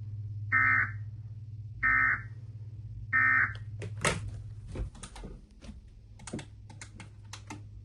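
Three short bursts of Emergency Alert System data tones, about a second and a half apart, the end-of-message code that closes an EAS activation. They are followed by a quick run of sharp clicks, over a steady low hum.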